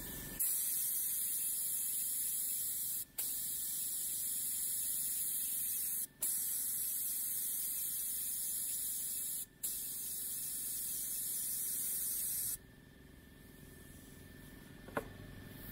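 HVLP spray gun hissing in a test spray of water-based paint thinned with about 10% water. It runs in four long bursts with three very brief breaks between them and stops about twelve and a half seconds in.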